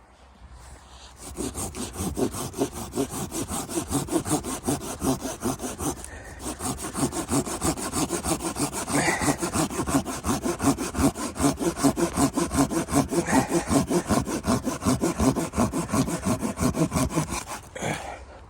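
Hand saw cutting through wood in quick, even back-and-forth strokes, with a short pause about six seconds in. The sawing stops shortly before the end.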